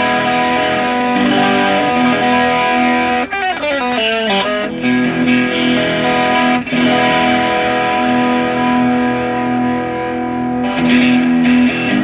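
Fender ST54-95LS Stratocaster-style electric guitar on its bridge-and-middle half pickup position, played through a BOSS SD-1 Super OverDrive into an amp. It holds sustained overdriven chords, slides down in pitch about three to four seconds in, and ends on a run of sharply picked notes.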